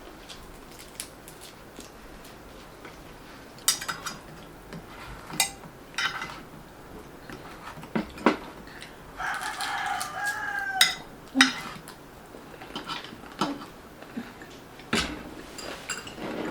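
Cutlery clinking against plates now and then while eating, and a rooster crowing once, about nine seconds in, for about a second and a half.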